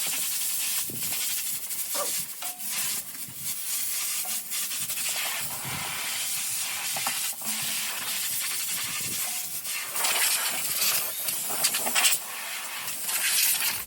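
Compressed air hissing from a blow nozzle, blowing dust and chaff out of a truck's engine compartment. The hiss swells and fades as the nozzle moves and is loudest in the last few seconds.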